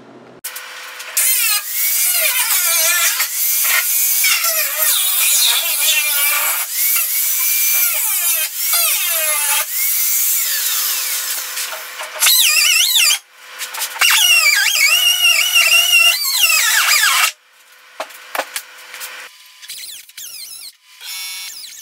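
Air-powered cut-off tool spinning a small abrasive wheel through the rusted sheet-steel skin of a truck door bottom. The whine rises and falls in pitch as the wheel bites, drops out briefly about two-thirds of the way through and stops a few seconds before the end.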